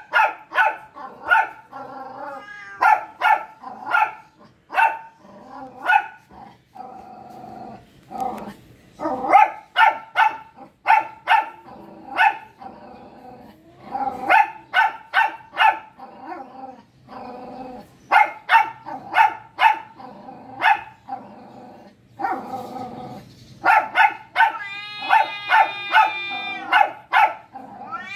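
A dog barking over and over in quick runs of several barks, about three or four a second, with short pauses between runs. Near the end there is a longer, higher drawn-out cry.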